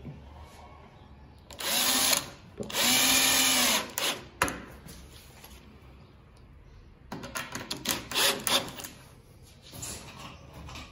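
Cordless drill-driver driving screws through a metal telescopic drawer slide into an MDF drawer side. It runs in bursts: a short run, then a longer run of about a second with its whine rising and falling, a sharp click, and later a quick series of short bursts.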